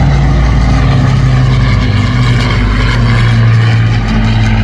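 Piston aero engine of a Second World War propeller warbird flying by, a loud steady drone whose pitch dips slightly about halfway through.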